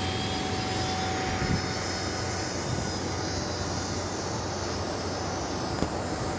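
Steady whine and rush of a parked Boeing 717's running jet auxiliary power unit (APU), with one constant mid-pitched tone over a low hum.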